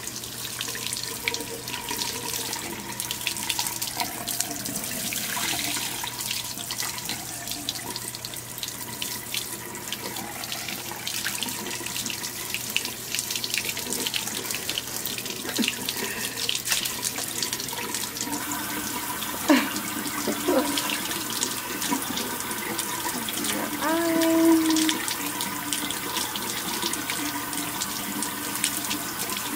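Water running steadily from a sink tap and hand sprayer as a newborn's hair is rinsed. A brief pitched sound stands out about three quarters of the way through.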